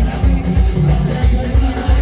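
Loud band music played through an amplified sound system, with a heavy bass line and a steady drum beat.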